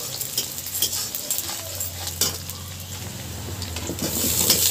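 Onions sizzling in hot oil in a metal wok, stirred and scraped with a metal spatula, with a few sharp clicks of the spatula on the pan. Near the end the sizzle grows louder as cut potato pieces are dropped into the hot oil.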